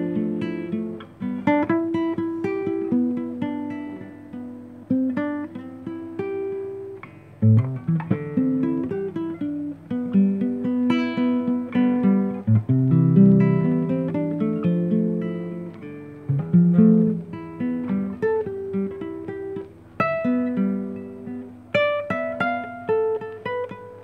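Nylon-string classical guitar played fingerstyle: a melody of single plucked notes over bass notes, each ringing and fading, with short breaks about seven and a half and twenty seconds in.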